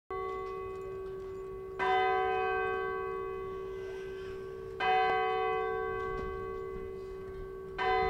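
Purdue Bell Tower's bell tolling. Three strokes come about three seconds apart, each ringing on with a long hum and fading before the next.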